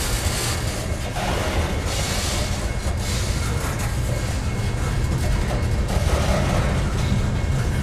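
Freight cars of a manifest train rolling past close by: a steady rumble of steel wheels running on the rails.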